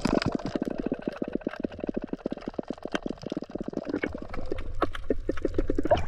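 Underwater sound picked up by an action camera in its housing: a dense, irregular run of bubbly pops and clicks. A low rumble of moving water comes in over the last couple of seconds.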